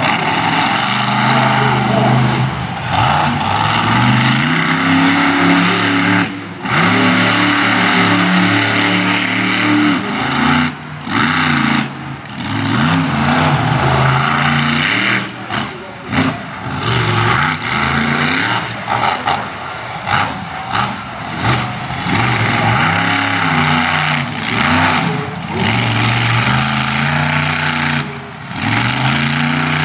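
Roughneck monster truck's engine revving up and down again and again at full, loud power, broken by several short sudden drops in the sound.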